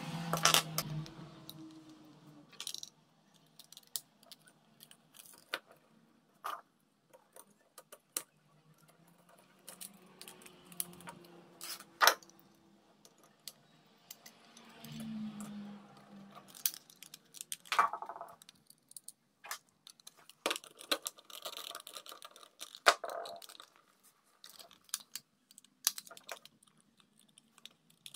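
Irregular light clicks and taps of small hard parts being handled and set down, with a few sharper knocks standing out, typical of working on a small diecast model car by hand.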